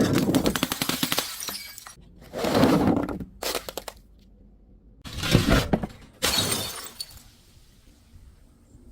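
Glass being smashed and crushed: several separate bursts of shattering and crunching, with shards crackling and tinkling after each break.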